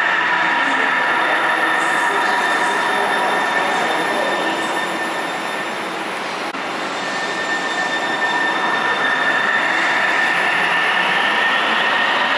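Link light rail trains running in an underground tunnel station: a steady rail rumble with high, steady whining tones, and a whine that rises in pitch near the end as a train moves.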